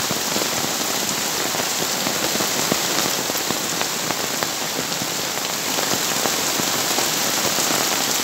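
Heavy rain falling steadily in a downpour, with runoff pouring off the edge of an awning. A dense, even rush with scattered sharp drop hits.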